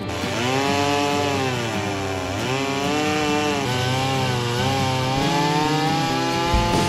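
Stihl gas chainsaw cutting into an eastern white pine log, its engine pitch rising and falling, dipping twice as the chain bites, then climbing steadily near the end.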